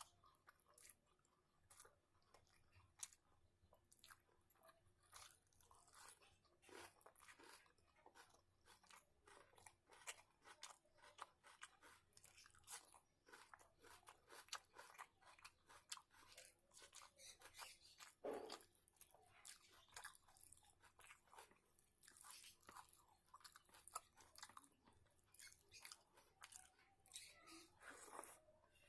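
Faint chewing and eating sounds: a person chewing food, with many irregular small wet clicks and occasional crunches.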